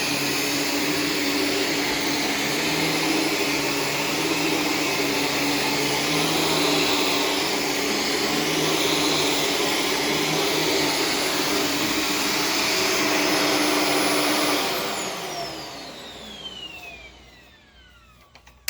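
Corded Shark Stratos vacuum cleaner running steadily. About 14 seconds in it is switched off, and the motor winds down with a falling whine that fades away.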